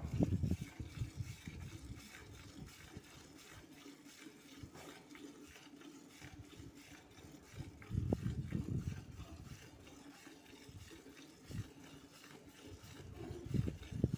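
Milk squirting in quick streams into a steel bucket as a water buffalo is milked by hand. Bursts of louder, low-pitched sound come at the start, about eight seconds in, and near the end.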